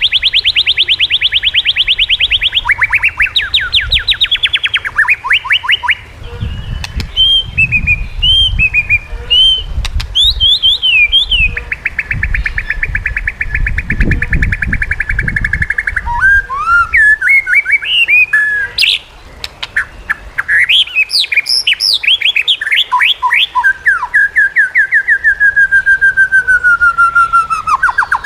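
White-rumped shama (murai batu) singing a loud, varied song: long trills of fast repeated notes alternate with whistled and chattering phrases, and near the end a long trill falls slowly in pitch. A low rumble runs underneath for several seconds in the middle.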